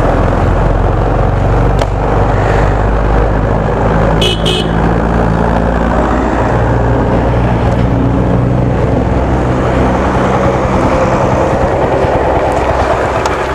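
TVS Apache 4V motorcycle's single-cylinder engine running at road speed, its pitch shifting a little about halfway through, under steady wind and road rush. A short two-part horn toot sounds about four seconds in.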